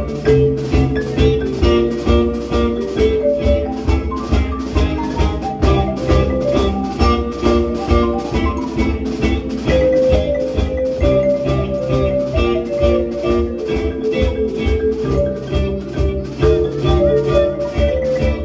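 Live band playing an instrumental: fast mallet runs on a marimba over electric guitar, with a drum kit keeping a steady beat.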